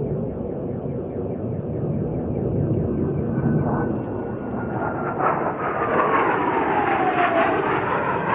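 Blue Angels F/A-18 Hornet jet flying past low, its twin turbofan engines making a loud roar. A whine falls steadily in pitch as it goes by, and the roar swells a little near the end.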